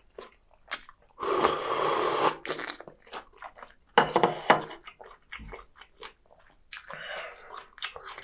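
A close-miked slurp of spicy chicken-feet broth from a spoon, lasting about a second, followed by wet chewing and mouth clicks.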